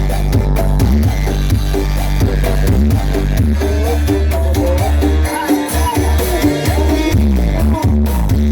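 Loud music from a large carnival sound system (sound horeg), with a heavy, steady bass and gliding melody lines.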